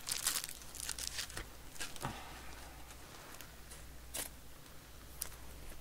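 Baseball trading cards being slid and flicked through by hand: short crisp card-on-card scrapes and flicks, a quick run of them in the first second and a half, then a few single ones.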